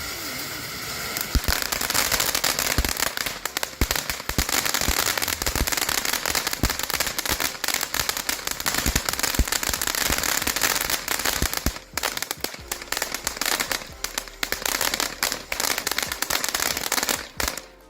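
TNT Crypto fountain firework in its crackle finale: a spraying hiss for the first second or so, then a dense, steady crackling of many small pops, ending abruptly just before the end as the fountain burns out.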